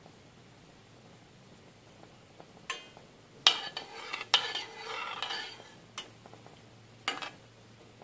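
A spoon stirring pieces of orange peel in a saucepan of sugar syrup, scraping and knocking against the pan a handful of times from about three seconds in.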